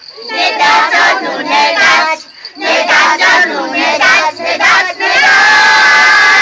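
A group of voices calling out together in chorus, ending in one long, loud held cry from the whole group about five seconds in.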